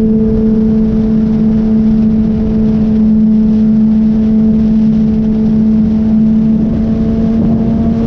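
Kawasaki ZX-10R's inline-four engine running at a steady highway cruise, holding one even pitch with no gear changes, over loud wind and road rush.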